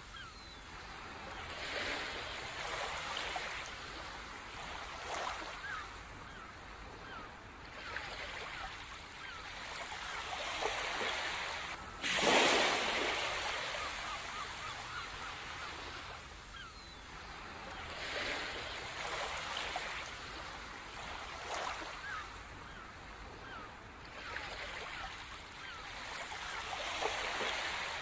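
Ocean surf washing in, swelling and fading every few seconds, with the biggest wave about twelve seconds in and another near the end. Faint bird calls sound over the waves.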